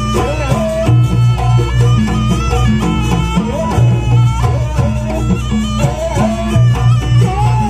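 Live jaranan music from an East Javanese ensemble: a nasal, wavering reed-pipe melody, typical of the slompret, over a repeating low drum and gong beat.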